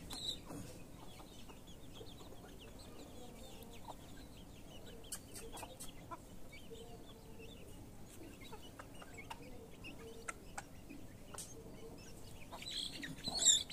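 A flock of young chickens and a hen softly peeping and clucking as they peck at feed on the ground, with many short high calls and a few sharp clicks. One louder, sharper sound comes near the end.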